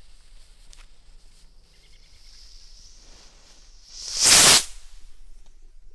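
Fuse of a small ground-launched missile firework sizzling faintly and growing stronger, then a loud rushing whoosh of about half a second, about four seconds in, as the missile's motor ignites and it shoots off.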